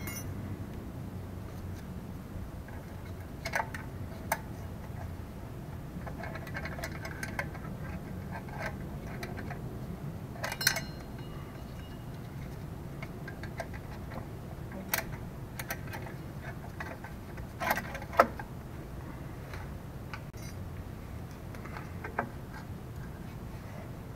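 Scattered light metallic clicks and clinks of drum brake shoes, return springs and hold-down hardware being fitted by hand onto the rear backing plate of a 1981 K5 Blazer. The sharpest clank comes about three-quarters of the way through.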